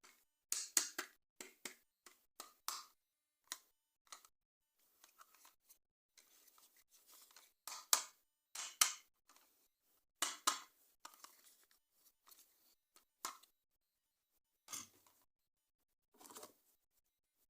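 Toy packaging and plastic toy parts being handled: irregular crinkles, rustles and sharp clicks, with a longer stretch of soft crinkling about six to eight seconds in.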